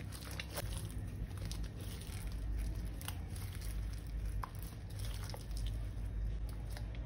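Slime being squished and mixed by hand, with scattered small wet clicks and crackles over a low handling rumble.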